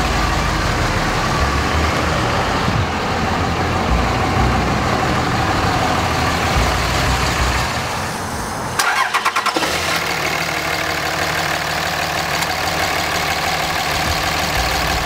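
The 5.9 L 24-valve Cummins turbo-diesel inline-six of a 2005 Dodge Ram 3500, idling steadily. About nine seconds in the low running sound drops out for under a second, with a quick run of sharp clicks, then the steady idle resumes.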